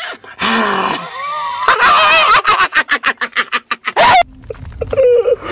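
A man making exaggerated, animal-like throat noises in a Gollum-style impression. First a wavering, rising cry, then a fast run of gulping clicks, then a sudden loud yell about four seconds in.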